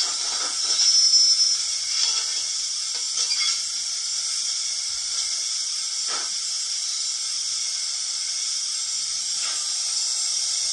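Steady steam hiss of a standing locomotive, played by the sound decoder in a Hornby Royal Scot model through its small speaker. A thin high tone rises over the hiss about a second in, and a few faint short sounds come through later.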